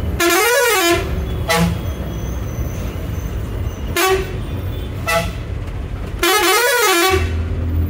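Bus horn sounding in a pattern: a longer blast whose pitch rises and falls, three short toots, then another long rising-and-falling blast near the end. A steady engine and road rumble runs underneath.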